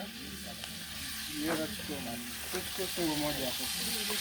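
Food frying in a pan: a steady sizzle with occasional stirring, and voices talking in the background.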